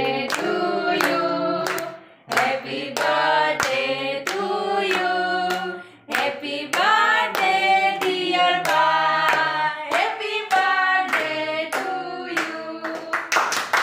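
A group singing a birthday song with hands clapping in time. The song comes in phrases, with short breaks about two and six seconds in.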